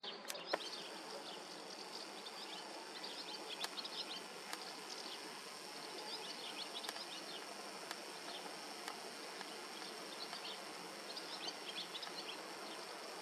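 Outdoor ambience: small birds chirping in short clusters over a steady high-pitched insect buzz and faint hiss, with a couple of sharp clicks right at the start.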